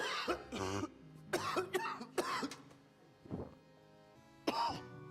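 A man coughing in a string of short, hacking coughs, about half a dozen in quick fits, over background music with sustained notes.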